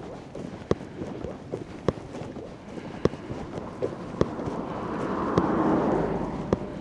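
Footsteps of a person walking at an even pace, a sharp step about every second with softer ones between. A rushing noise swells about two-thirds of the way through and eases off near the end.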